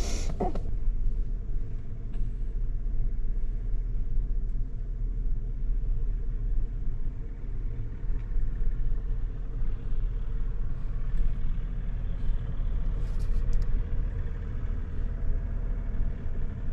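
Steady low engine rumble heard from inside a truck cab.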